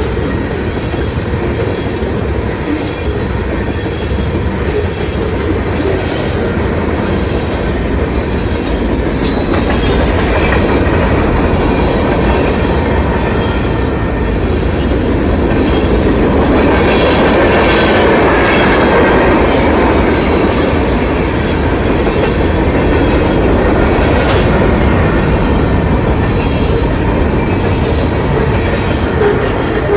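Train cars rolling past on the rails: a steady loud rumble with wheel clatter, swelling somewhat past the middle and easing near the end.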